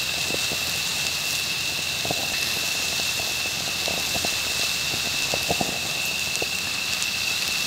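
Crickets chirring as a steady high drone, with scattered small ticks and crackles over it.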